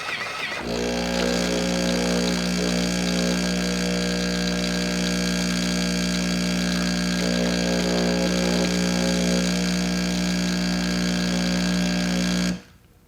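Jura E8 espresso machine running its milk-clean cycle: a steady machine hum with a fainter hiss, as cleaning solution is drawn up through the fine foam frother. It starts about half a second in and cuts off abruptly near the end.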